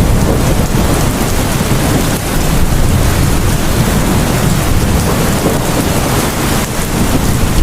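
Steady heavy rain with a continuous low rumble of thunder, a thunderstorm ambience.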